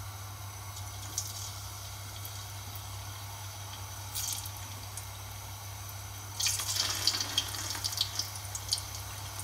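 Cassava chips dropped into hot oil, sizzling and crackling as they go in: a short sizzle about four seconds in, then a louder burst of crackling and popping from about six seconds in as more chips hit the oil. A steady low hum runs underneath.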